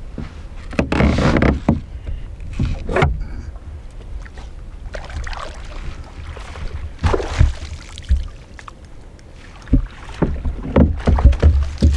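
Irregular knocks, rustling and rushes of noise in a canoe while a fish is fought and reeled in, with wind buffeting the microphone in stretches.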